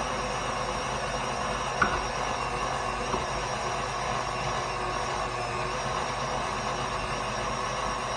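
KitchenAid stand mixer running steadily with its meat-grinder attachment, the auger feeding meat to the blade, with ground meat being put back through to push the last pieces out. A sharp click about two seconds in and a fainter one about a second later.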